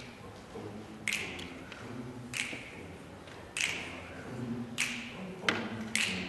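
Mixed a cappella vocal ensemble singing soft, low sustained notes, with finger snaps keeping a steady beat about every second and a quarter.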